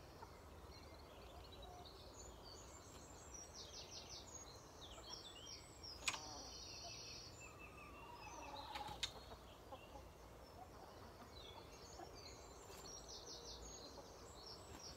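Faint wild songbirds singing: trills and quick runs of repeated high notes, one after another. A roosting chicken gives a brief low call near nine seconds, and two sharp clicks stand out about six and nine seconds in.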